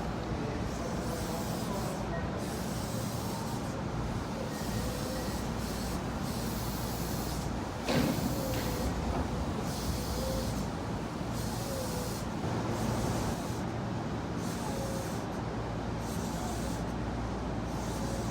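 Train standing at a station: a steady low hum from its equipment, with a high hiss coming and going about once a second and a sharp knock about eight seconds in.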